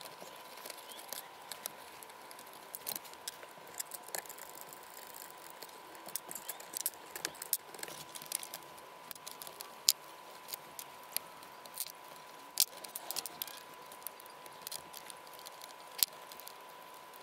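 Scattered small clicks, clinks and rattles of screws, tools and machine parts being handled during the strip-down of a DIY CNC router, with a sharper click about ten seconds in. A faint steady high tone runs underneath.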